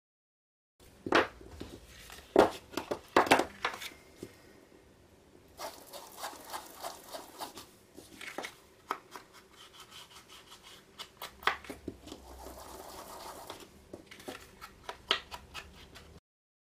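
A foam ink blending tool dabbed on an ink pad and rubbed in short strokes over the edges of a paper tag: soft rubbing with many small taps. There are a few sharp knocks in the first few seconds.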